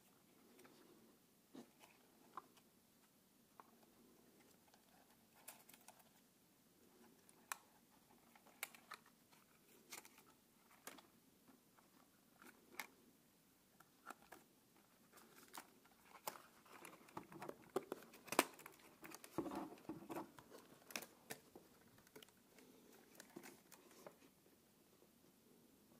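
Faint scattered clicks, taps and light rustling of hands handling a DJI Mini 2 drone and moving its plastic folding arms. The handling noises come thickest a little past the middle.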